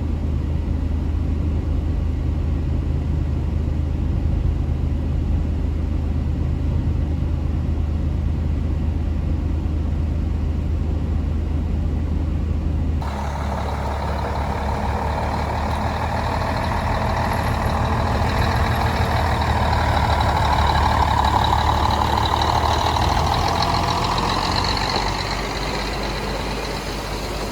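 Heavy construction machinery with diesel engines running: a steady low engine hum, then, after a sudden change about halfway through, a louder machine sound that swells and then fades toward the end.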